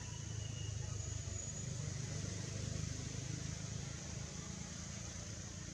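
Steady low outdoor rumble with an even high hiss over it.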